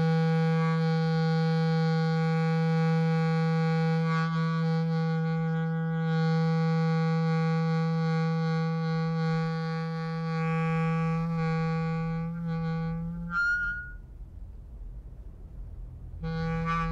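Experimental noise music: a steady low drone with many overtones, held at one pitch for about thirteen seconds. It ends in a brief high warble and cuts off, leaving a low rumble, then returns suddenly near the end.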